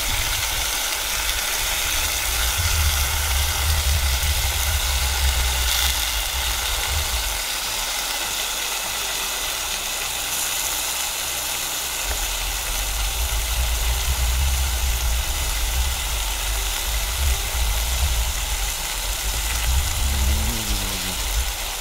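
Wind rumbling on the microphone in gusts that come and go, over a steady rushing hiss.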